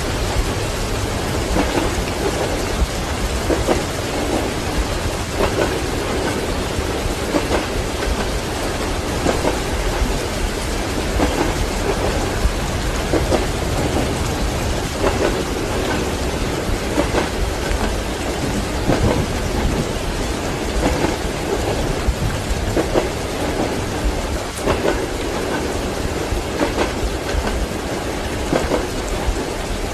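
Steady heavy rain with rumbling thunder, and a train rolling along beneath it, heard from inside a compartment.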